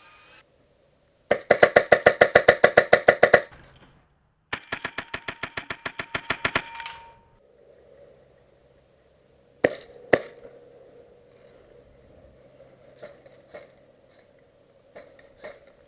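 Airsoft gun firing two full-auto bursts of about two seconds each, roughly eight shots a second, the second burst quieter; two sharp knocks follow a few seconds later.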